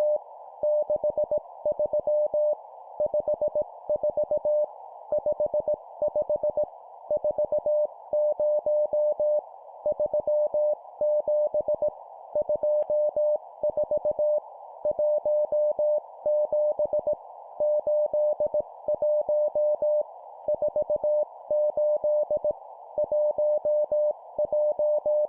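Morse code (CW) practice tone keyed at 17 words per minute: a single steady tone switched on and off in dots and dashes, in short groups separated by brief pauses, over a constant band of hiss.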